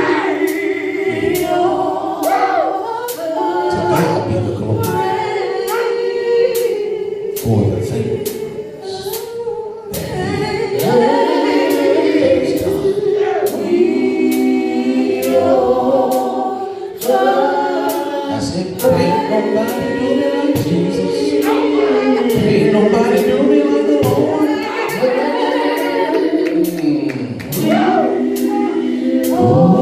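Gospel choir singing a worship song, with sharp strokes keeping a steady beat about twice a second.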